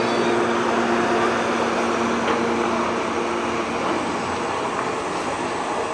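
Electric commuter train at a station platform: a steady hum and rumble from its motors and on-board equipment. A few held hum tones fade out about three and a half seconds in, and the sound eases slightly.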